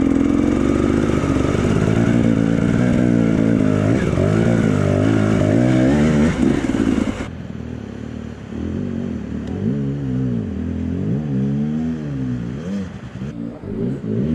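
Enduro motorcycle engine running hard while the bike fords a river, its revs wavering up and down. About seven seconds in the sound cuts to quieter engines of other enduro bikes, revving up and down repeatedly as they cross the river.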